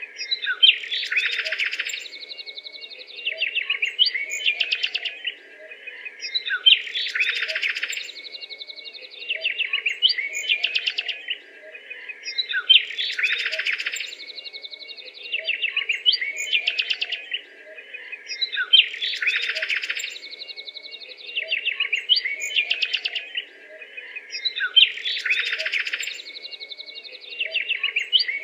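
Bird-like chirping and rapid trilling, offered as a Daemonosaurus call. The same few-second phrase repeats about every six seconds, as a loop, over a faint steady low hum.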